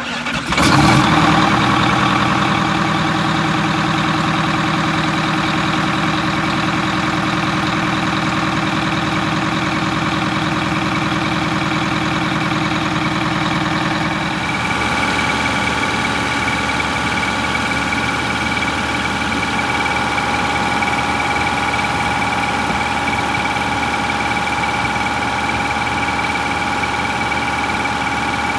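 Rear-mounted diesel engine of a Blue Bird Wanderlodge bus catching just after a start and running steadily at idle, on a test run after its water pump was fixed. About halfway through the sound shifts, the low rumble dropping and steady higher-pitched tones coming forward.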